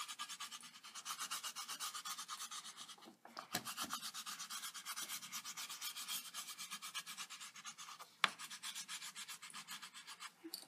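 A blue wax crayon scribbling fast back and forth on paper as a sky is shaded in, a rhythmic scratchy rubbing of several strokes a second. There are brief pauses about three seconds in and about eight seconds in, with a sharp tap at the second pause.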